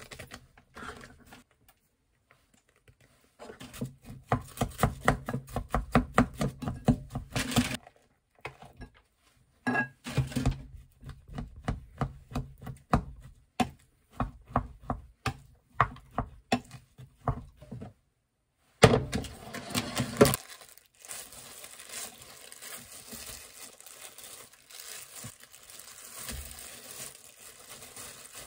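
Kitchen knife chopping food on a cutting board: a fast run of strokes, then slower, evenly spaced cuts about two a second. A louder clatter follows, and then a steady soft hiss.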